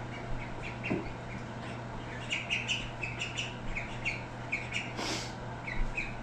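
Birds chirping in a quick, irregular series of short high peeps over a steady low hum, with a brief hiss about five seconds in.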